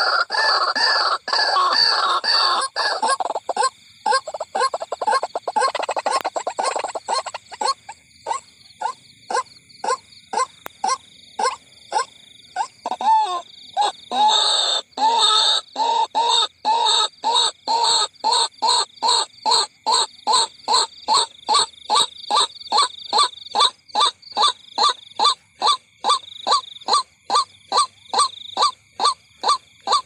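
White-breasted waterhen calling: a dense, harsh croaking chatter for the first few seconds, thinning into a long, even run of repeated single notes, about two a second.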